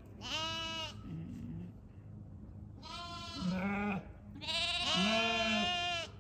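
Sheep bleating: three wavering calls, the last the longest at about a second and a half.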